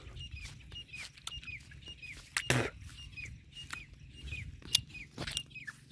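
A small animal calling: a short, high chirp that falls slightly in pitch, repeated two to three times a second. Scattered clicks and rustles from walking through dry grass run under it, with one louder knock about two and a half seconds in.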